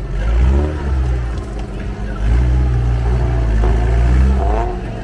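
Engine of an off-road 4x4 working through a jeep-trial course, revving up hard twice with a brief easing between.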